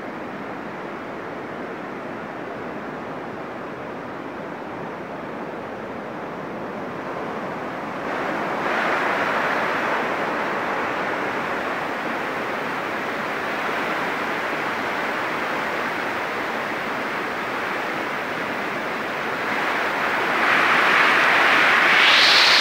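Waterfall cascading over rock slabs, a steady rush of water that grows louder about a third of the way in and again near the end.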